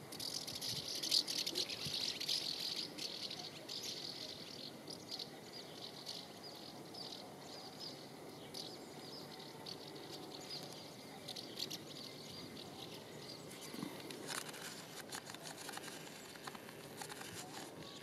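Swallows twittering: a quick stream of short, high chattering notes, busiest in the first few seconds and again about fourteen seconds in.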